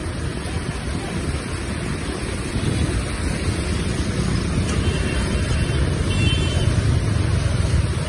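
Fast-flowing muddy floodwater rushing steadily, a continuous rush with a heavy low rumble that slowly grows louder.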